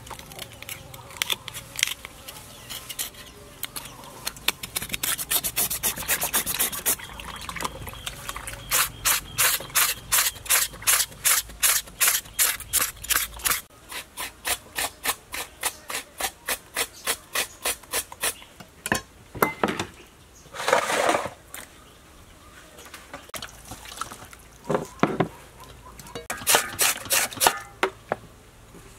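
Raw pork being rubbed and scraped by hand while it is washed in a bowl of water: even strokes about two a second, with a few louder wet scrapes and splashes later on.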